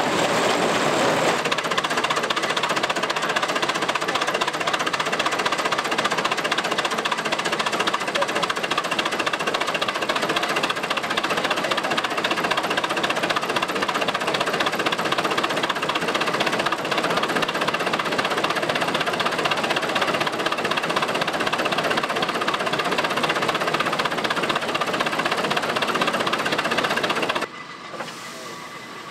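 Antique belt-driven threshing machine running: a loud, dense, steady rattle and clatter of its working parts. The din drops off suddenly near the end.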